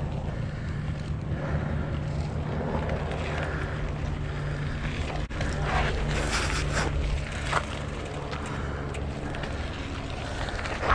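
Wind rumbling on an action camera's microphone over the rolling noise of a mountain bike on a dirt trail, with a few louder scuffs around six to seven seconds in.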